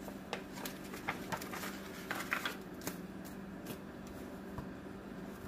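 Paper being handled, likely the operating-instruction sheet being folded and set down: a run of short crisp rustles and light clicks, loudest a little after two seconds in, dying away after about four seconds.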